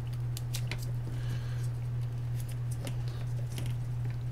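Small plastic clicks and rattles of multimeter test leads being handled as clip-on probes are attached, over a steady low hum.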